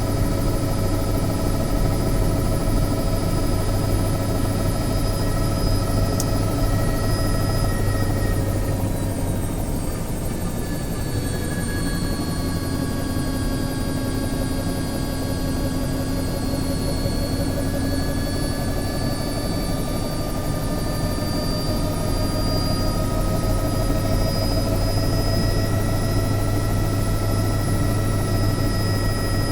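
Helicopter turbine engine and rotor running steadily: a deep rotor drone under a layered turbine whine. The whine sags slightly in pitch and level about eight seconds in, then slowly climbs back near the end.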